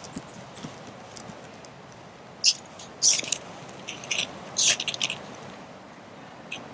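Fire-lighting strikes: five or six short, sharp, hissing scrapes in quick succession, made while trying to light tinder for a twig stove.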